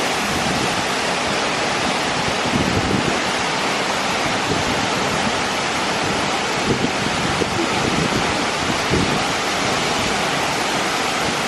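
Looking Glass Falls pouring steadily: the even, unbroken rush of falling water.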